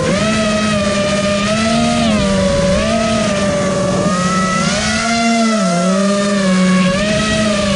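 FPV quadcopter's electric motors and propellers whining, heard from on board, the pitch rising and falling repeatedly with throttle changes, with a deeper dip a little past the middle.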